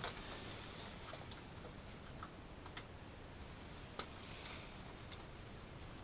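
Faint, scattered small clicks and taps of hand tools working against metal and plastic parts, about half a dozen in all, the sharpest about four seconds in.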